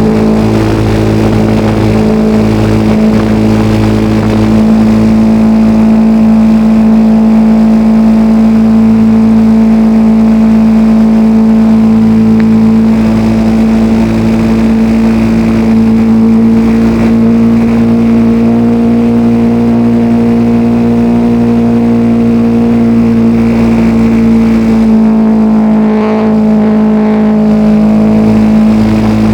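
The 40 cc engine of a radio-controlled L-19 Bird Dog model airplane, heard from a camera on board in flight: a loud, steady drone that rises slightly in pitch in the middle and eases back near the end.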